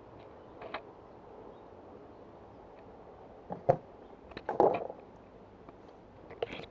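Handling noise from a hand-held camera being carried: a few scattered knocks and rustles over a faint background, the loudest cluster about four and a half seconds in.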